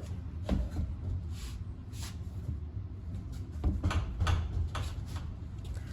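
A few scattered clunks and clicks from tools and car parts being handled during suspension work, over a low steady garage rumble.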